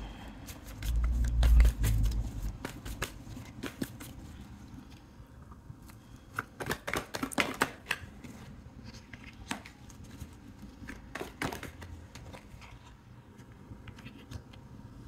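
Tarot cards being handled and laid down on a tabletop: a low thump and rumble about a second in, then a run of light clicks and snaps as cards are drawn and placed.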